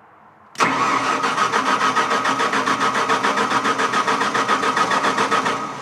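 Onan standby generator's engine cranking on its electric starter with a rapid, even pulsing and a starter whine, then the cranking stops near the end and winds down without the engine catching; the owner suspects it is not getting fuel.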